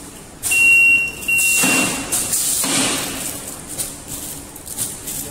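A conveyor metal detector's alarm gives two high beeps, about half a second each, as a test piece of metal passes through on a fried bread stick. This is followed by two short hissing bursts, taken here as the compressed-air reject mechanism firing.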